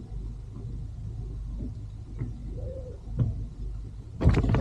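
Water splashing near the end as a hooked fish is brought to the surface beside the landing net, over a steady low rumble of wind and sea. A short low humming sound comes a little past halfway.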